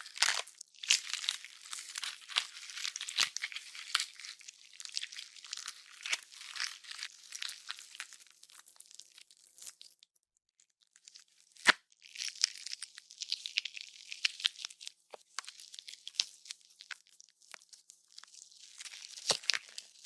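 Gore sound effect of wet flesh tearing and squishing, with dense crackling and bone crunches throughout. About ten seconds in it drops out briefly, then a single sharp bone crack starts a fresh run of tearing.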